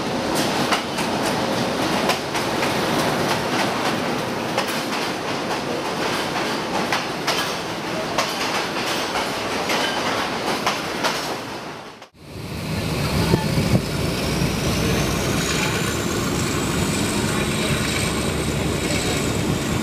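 A passenger train clatters along a station platform, its wheels clicking over the rail joints. After about twelve seconds this gives way to the steady rumble and clickety-clack of the moving train heard from aboard, with a thin high squeal that slowly rises and then falls.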